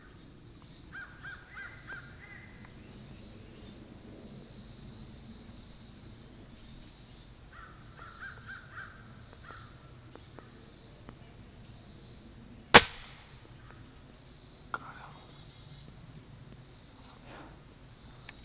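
A bird calls in two short runs of repeated calls. About 13 seconds in, a Benjamin Trail NP nitro piston .177 air rifle fires a single sharp shot, the loudest sound, followed about two seconds later by a smaller click.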